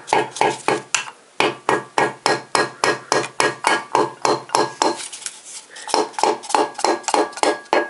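Rapid, even tapping, about three or four taps a second, as the handle end of a hammer drives a piston down through a steel piston ring compressor into the cylinder bore of a Toyota VVTi engine block. The taps pause for about a second near the middle, then start again.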